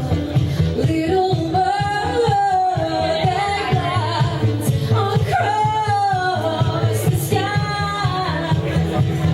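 A woman singing a pop song over a karaoke backing track, with a steady pulsing beat underneath.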